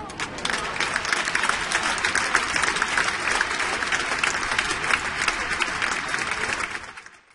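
Crowd applauding with many hands clapping at once, steady throughout and fading out near the end.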